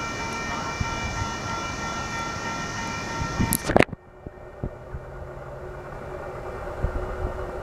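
Freight cars of a Union Pacific intermodal stack train rolling past on the rails: a steady rumble with several high, steady ringing tones over it. Just before four seconds in there is one sharp bang, after which the passing runs quieter and duller.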